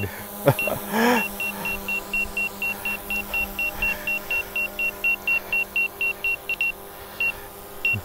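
Rapid high-pitched beeping, about five beeps a second, from the Autel EVO drone's controller, the warning it gives while it reports a hill in the way; near the end the beeps slow to about two a second. Under it, the steady whine of the drone's propellers as it hovers close by.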